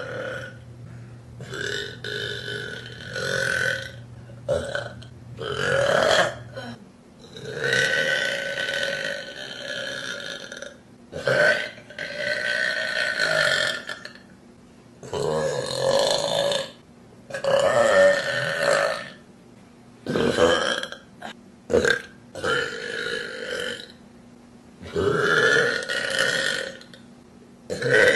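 A woman burping over and over: about a dozen long, drawn-out burps with short pauses between, several lasting two to three seconds.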